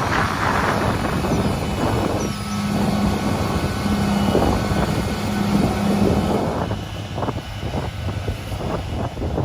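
Heavy construction machinery running, a steady engine hum with rumble. About six and a half seconds in the hum fades and irregular knocks and clatter take over.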